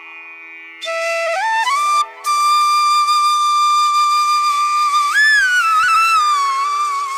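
Background music: a flute melody with sliding, bending notes over a steady held low note. It comes in about a second in and pauses briefly just after two seconds.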